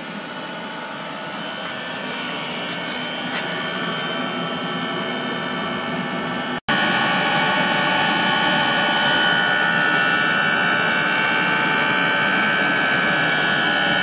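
Eberspacher diesel night heater running at full power with a genuine Webasto/Eberspacher exhaust silencer fitted: a steady rushing sound with a high whine. The sound drops out briefly about halfway through and is louder afterwards, heard close to the silenced exhaust under the van.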